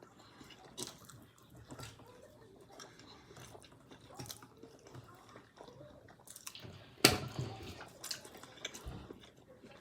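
Close-up eating: chewing and biting, with soft mouth clicks and a few small knocks, one louder sharp knock about seven seconds in.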